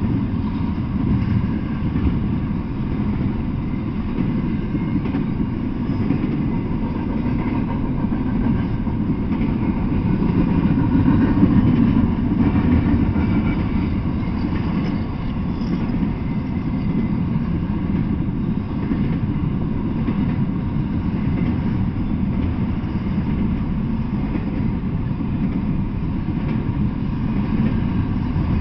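Double-stack intermodal freight train rolling past: a steady low rumble of steel wheels on the rails that swells slightly about halfway through.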